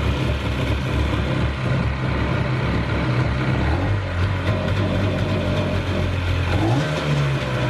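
Jet ski engine running just after being started, first at a steady low idle, then its revs step up about four seconds in and rise again near the end.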